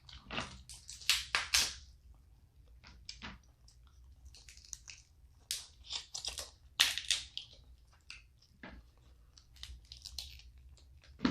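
Snow crab leg shells being cracked and snapped open, a run of irregular sharp cracks and crunches, loudest about a second in and again about two-thirds of the way through.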